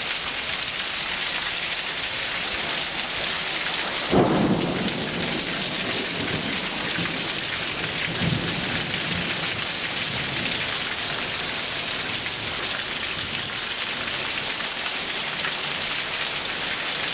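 Heavy downpour in a thunderstorm, with rain pounding and water pouring off the roof edge. A sudden low boom comes about four seconds in, and a weaker low rumble a few seconds later.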